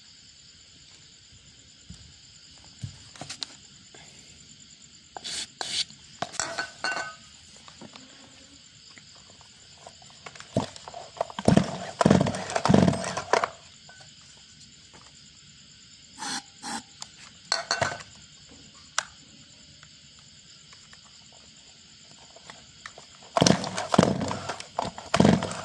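Two-stroke engine of a Solo 633 chainsaw being pull-started after a prime of gasoline, in four bursts of quick strokes with quiet gaps between them.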